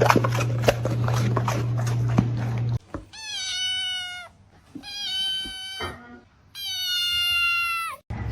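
A steady low hum with scattered clicks, then a domestic cat giving three long, drawn-out meows a short pause apart.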